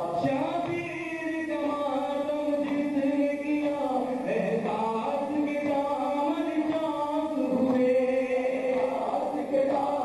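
Men's voices chanting a noha, a Shia mourning lament, in chorus, with long held notes that step up and down in pitch.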